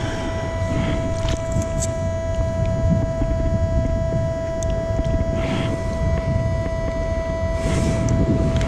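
Metal detector sounding a continuous steady tone over a metal target, a found tag, held without a break over a low rumble.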